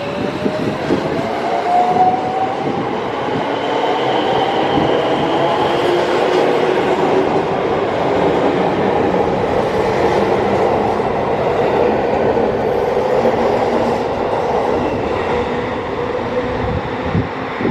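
JR West 223 series electric train pulling out of a station. The traction motor whine rises in pitch over the first few seconds as it accelerates, then the cars pass with steady rolling noise and wheels clacking over the rail joints.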